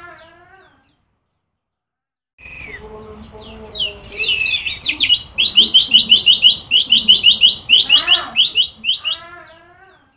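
Kecial kuning white-eye singing: after a short silence, a long run of rapid repeated high notes with quick sweeping notes mixed in, and a falling series of lower notes near the end.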